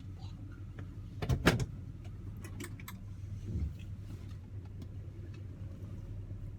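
1971 Oldsmobile Cutlass S idling steadily while its heavy door is shut with a loud clunk about a second and a half in, followed by a softer thump a couple of seconds later. The door doesn't always want to close.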